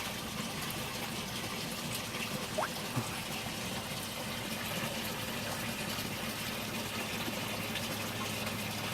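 Steady rush of water splashing and pouring into an aquaponics fish tank, fed by a newly installed bilge pump running at high flow.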